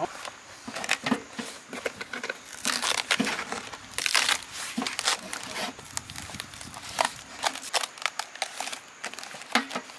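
Fresh banana leaf crinkling and rustling in irregular crackles as hands fold it over and over into a flat parcel.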